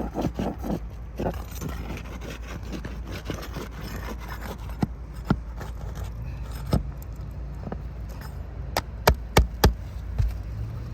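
Metal tool being worked under brittle roof shingles to pry them up: irregular scraping and crackling with several sharp clicks, three of them in quick succession about nine seconds in.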